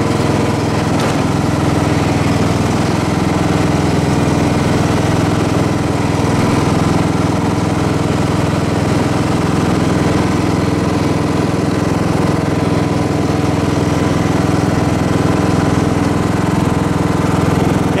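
Cub Cadet XT1 Enduro riding lawn tractor's engine running steadily as the tractor is driven.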